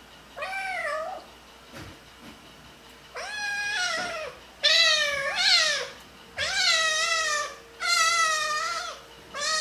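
Kitten meowing repeatedly, about six drawn-out, wavering meows, in protest while its fur is being brushed.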